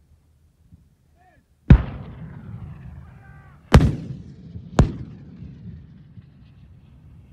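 Three heavy booms of 105 mm artillery fire, the second about two seconds after the first and the third a second later. The first is the loudest, and each dies away in a long low rumble.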